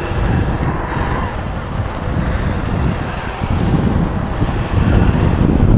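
Wind buffeting the microphone of a motorbike riding along wet beach sand, with the bike's engine running beneath it. The rumble gusts louder about five seconds in.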